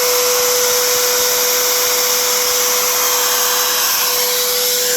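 High-speed electric motor running steadily at full speed after spinning up, a constant whine over a rush of air noise; no cutting is heard.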